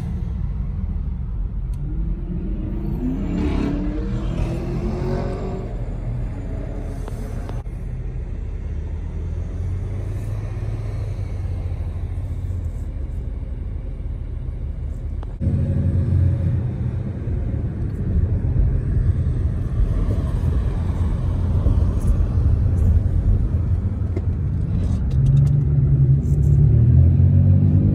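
Car engine and road rumble heard from inside a car in city traffic. The engine note rises as the car pulls away a few seconds in, the noise gets louder about halfway through, and the engine rises in pitch again near the end as the car speeds up.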